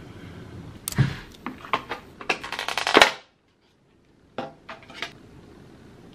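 Clear plastic takeout container lid being pried off its tray: a run of crackling snaps and crinkles, thickest just before it comes free. After a short break, a few lighter plastic clicks as the lid is set down.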